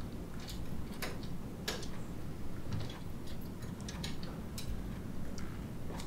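Scattered light clicks and taps at uneven intervals over a low, steady hum.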